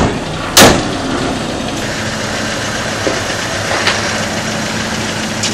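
Fiat Fiorino van's engine idling steadily, with one loud thump about half a second in.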